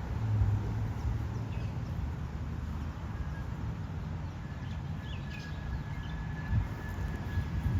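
Outdoor ambience: a steady low rumble of wind on the microphone, with a few faint bird chirps and a thin, steady high tone held for about three seconds in the second half.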